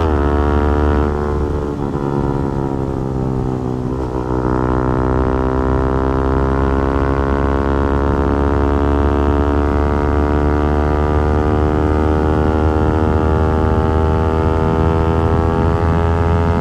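Yamaha R15 V4's single-cylinder engine and exhaust at speed. The revs dip sharply a few times in the first four seconds, then climb slowly and steadily as the bike accelerates.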